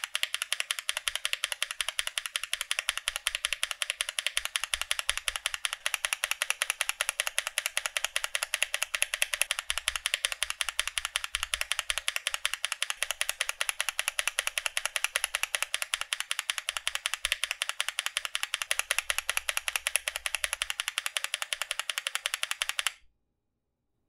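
A lubed Gazzew Boba U4T tactile switch in a Tofu65 mechanical keyboard, its Z key pressed over and over: a fast, even run of keystroke clacks that stops suddenly near the end.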